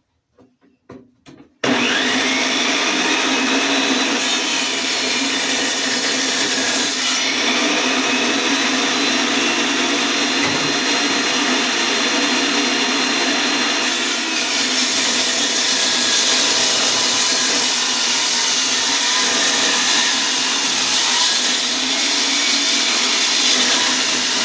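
An electric saw starts about a second and a half in and runs steadily, ripping lengthwise through a hard ash board. The motor is working under heavy load from the hard wood.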